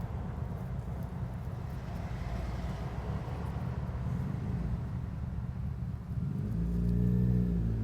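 Low outdoor rumble with a flickering low-end. About six seconds in, a low hum made of several tones swells up and becomes the loudest thing.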